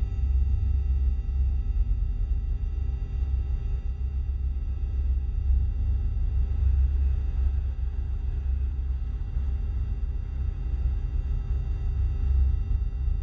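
Synthesized UFO hover sound effect: a dense low rumble under a cluster of thin, steady high tones, holding without change.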